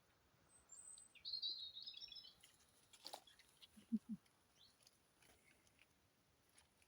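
A small songbird twittering a short high phrase, faint against quiet garden ambience, followed by a sharp click and two short low sounds close together about four seconds in.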